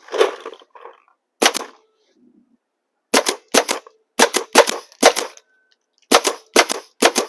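Paintball gun firing about a dozen sharp shots: two single shots, then quick bunches of three or four, two to three a second, at a pressure washer's plastic housing at close range.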